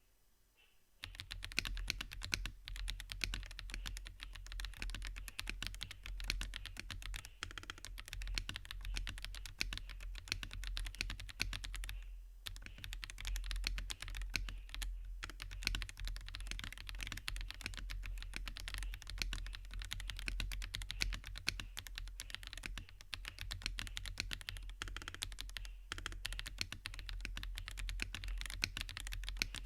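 Fast, continuous typing on an IKKI68 Aurora R2 mechanical keyboard with Wuque Aurora Clear switches and Osume Sakura keycaps. It starts about a second in and has a few brief pauses along the way. A steady low hum runs underneath.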